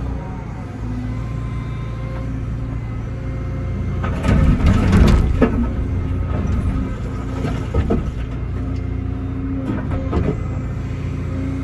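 Excavator engine running steadily under load, with a loud rough crunch and scrape about four seconds in and smaller ones later as concrete is broken up.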